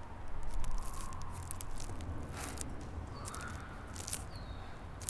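Giant-spider creature sound effects: clicking, wet chittering and a few short rasping cries over a steady low rumble, a cluster of clicks in the first second and several more after.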